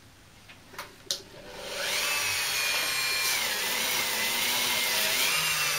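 Two clicks, then a Dremel rotary tool fitted with a chamois polishing mop spins up into a steady high whine, run slow at about 5,000 rpm. Its pitch dips slightly for a couple of seconds in the middle.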